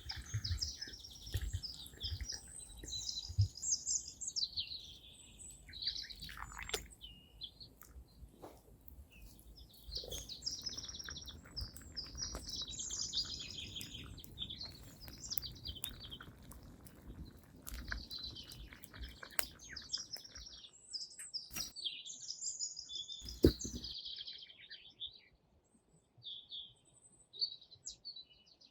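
Songbirds singing in repeated chirping phrases, with scattered small clicks and one sharp knock about four-fifths through. A faint low rumble underneath stops about two-thirds through.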